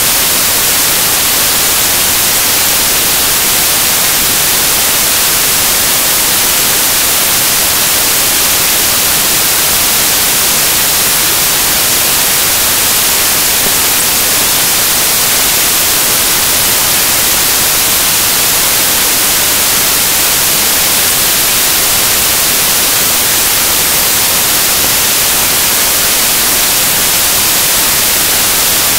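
Loud, steady static hiss with nothing else in it, strongest in the highest pitches: noise from a corrupted video file where the recorded audio should be.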